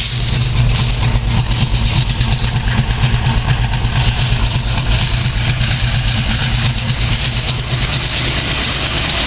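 Truck engine idling steadily, running on its own just after a cold start on a new battery, having sat unused for a while.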